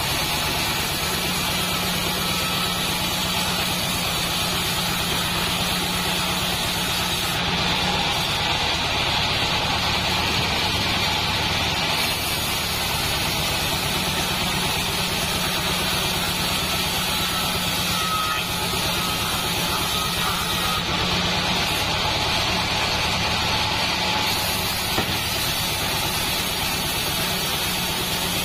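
Assembled band sawmill running steadily, its band blade ripping lengthwise through a log of Javanese salam wood, over a constant low machine hum.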